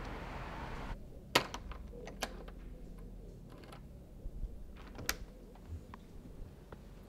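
Door lever handle and lock clicking: a scattering of sharp clicks, the loudest about a second in, as the handle is worked and pressed down. A steady hiss cuts off just before the clicks start.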